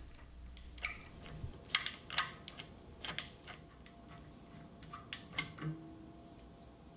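Faint, irregular light clicks and ticks from the Astro Pneumatic 1442 hand rivet-nut tool as its knob is turned counterclockwise to back the mandrel out of the freshly set threaded insert and the tool is pulled off.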